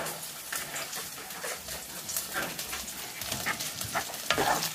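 Chicken and vegetables in sauce sizzling in a cast iron skillet while a spatula stirs them, with irregular short scrapes of the spatula against the pan.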